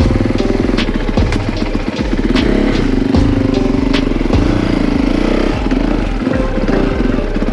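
Dirt bike engine running, its pitch rising and falling as the throttle opens and closes, with scattered sharp clicks.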